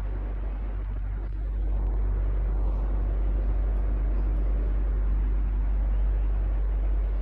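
Electric fan running steadily: a low hum under an even airy whoosh, a little louder from about two seconds in.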